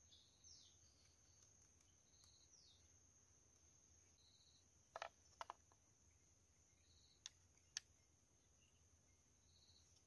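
Faint forest ambience: a steady high insect drone with short chirps repeating every couple of seconds and two quick falling calls in the first few seconds. Around halfway through come a few sharp clicks of the bamboo strips being bent and handled, two more about two seconds later.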